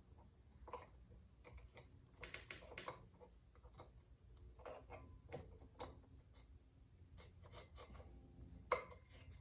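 Faint, irregular clicks and clinks of small metal chainsaw clutch parts being handled and fitted.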